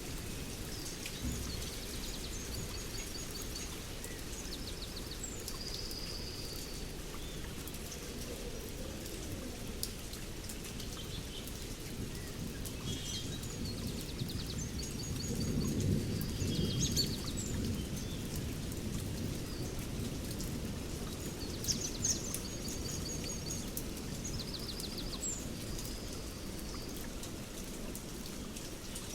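Steady rain falling, with songbirds singing short repeated chirping phrases. A low rumble of distant thunder swells about halfway through.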